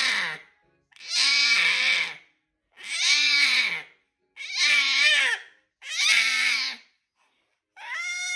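A seven-month-old baby screaming in a run of short high-pitched shrieks, each about a second long and falling in pitch, about one every second and a half. A steadier squeal starts near the end.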